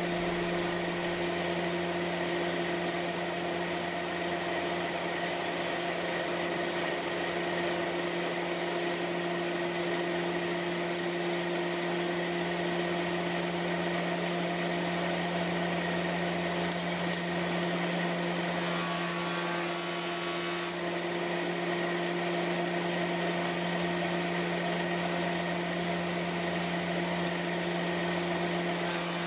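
Stroke sander running steadily, its belt pressed by a hand-held pad onto a timber window sash for a first, coarse sanding: an even machine hum that holds level throughout.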